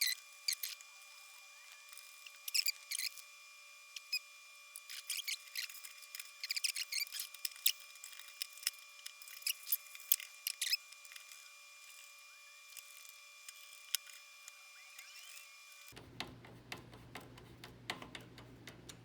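Small plastic and metal clicks, taps and scrapes as 120 mm case fans and their screws are fitted into a PC case, in dense clusters for the first ten seconds or so and sparser after. For most of the stretch the sound is thin, with the low end cut away.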